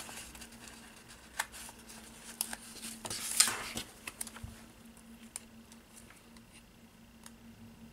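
Hands handling a sticker sheet and a plastic planner divider: scattered light taps and clicks, with a short rustle about three seconds in as a tab sticker is peeled and pressed on. A faint steady hum sits underneath.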